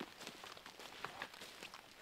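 Footsteps of a hiker walking over leaf litter on forest ground, heard as a run of short, irregular scuffs and ticks.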